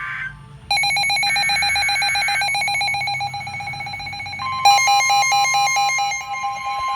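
Emergency alert tones for a severe thunderstorm warning: a rapidly pulsing electronic beeping starts about a second in, and about four seconds in a steady high alarm tone joins it and carries on.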